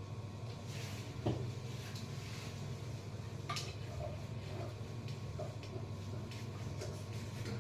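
Scattered light knocks and clicks of objects being handled, with a sharper knock about a second in, over a steady low hum.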